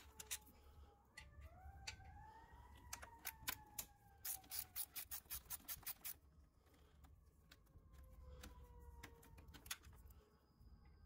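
Faint clicking of a hand ratchet loosening the bolts that hold a radiator cooling fan, with a regular run of about four clicks a second near the middle.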